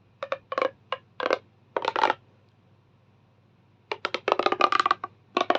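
Plastic Tangle fidget toy being twisted, its curved segments clicking as they turn at the joints. The clicks come in short bursts, then in a longer, denser run about four seconds in.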